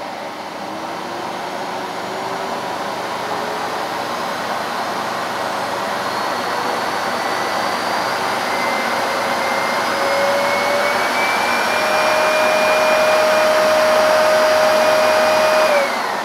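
Hoover Sensory TS2165 2200-watt bagged cylinder vacuum cleaner running as its power dial is turned from the lowest setting up to full: the motor's whine climbs steadily in pitch and the sound grows louder, with no high-pitched scream. Near the end it is switched off and the motor winds down.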